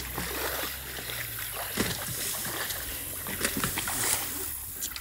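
Feet splashing and sloshing through shallow river water over rocks, with scattered sharp knocks and a low wind rumble on the microphone in the first second or so.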